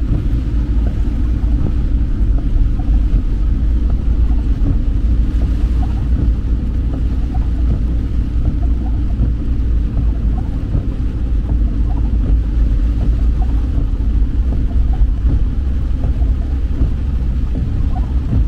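Steady low rumble of wind buffeting the microphone on the seashore, unbroken throughout.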